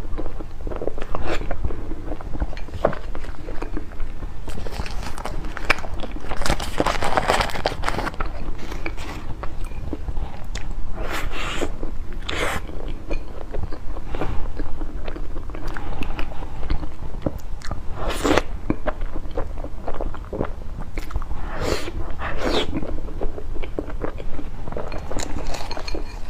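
Close-miked eating sounds of soft desserts: wet biting and chewing. Sharp bites stand out at irregular moments among the steady chewing.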